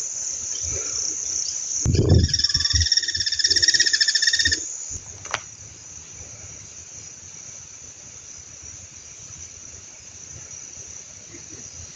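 Steady high-pitched chirring of crickets and other insects in a grassy pasture. From about two seconds in, a frog calls with a rapid pulsing trill for about two and a half seconds, over a few low thuds of handling or footsteps.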